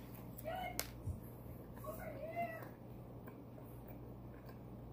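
A cat meowing twice: two short calls that rise and fall in pitch, about a second and a half apart, with a sharp click between them.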